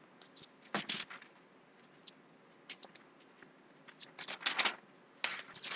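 Pages of a Bible being leafed through: a string of short, crisp paper flicks and rustles, thickest about four to five seconds in.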